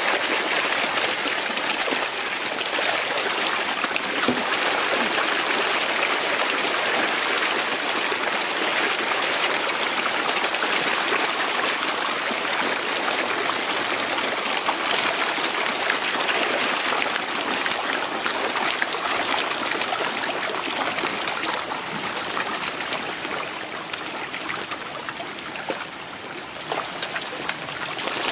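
Continuous splashing and churning of water as a crowd of koi thrash and gulp at the pond surface while feeding, full of small quick splashes, easing a little for a few seconds near the end.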